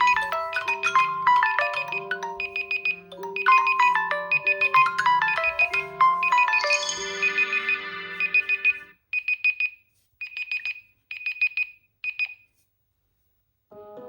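Smartphone alarm tones: a marimba-like melody over a repeating bass line, stopping about nine seconds in, then four short bursts of rapid high beeps about a second apart. After a short pause a different tone starts right at the end.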